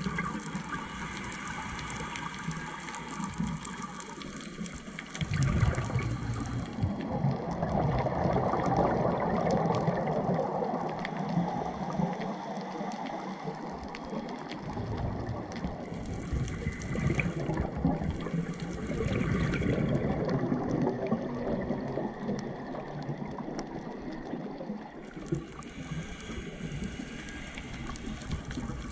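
Underwater scuba sound: a rushing, bubbling noise of air exhaled through a diver's regulator. It swells into two long, louder stretches, one about six seconds in and one about nineteen seconds in.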